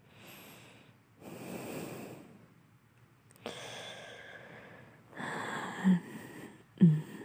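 A voice actor breathing and sighing drowsily: several long breathy exhales, then two short low grunts near the end.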